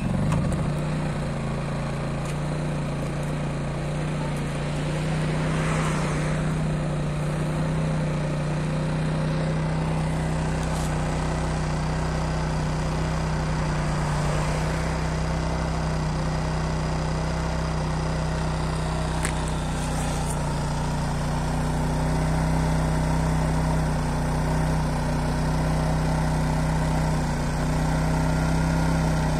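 Honda EX650 portable petrol generator, made around 1992, catching at the very start and then running steadily with an even low hum. It starts at the first pull after its carburettor was cleaned.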